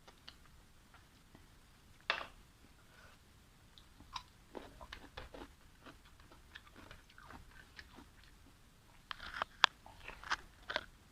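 Close-miked eating sounds: a person chewing and biting, with sharp wet clicks and crunches coming in scattered clusters, the loudest near the end.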